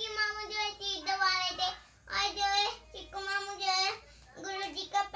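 A young boy singing in a high voice, held notes in about five short phrases with brief pauses between them.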